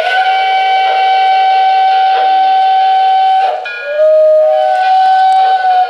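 Model steam locomotive's onboard sound system blowing a multi-note steam chime whistle: one long blast of about three and a half seconds, then a second blast that starts on a lower note and steps up.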